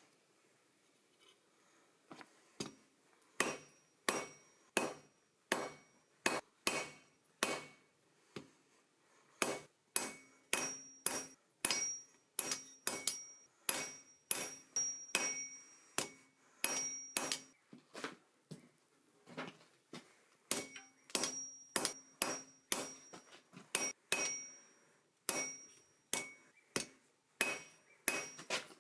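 Hand hammer striking hot steel on an anvil in steady runs of about one to two blows a second, with brief pauses between heats. Many of the blows leave a short metallic ring.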